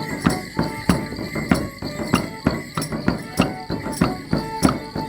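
Border Morris dance music: a tune in short held notes over an even beat of sharp strikes, about three a second, with some jingling.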